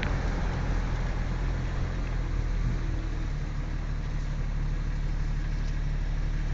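A motor engine running steadily with a low, even hum, under a rushing noise that eases off about three seconds in.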